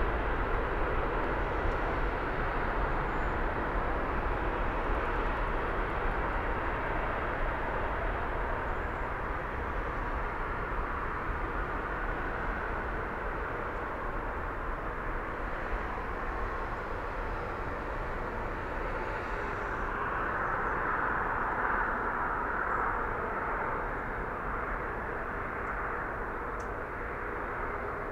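CFM LEAP-1B jet engines of a departing Boeing 737 MAX 8 airliner, a steady jet noise that slowly fades, with a brief swell about two-thirds of the way through.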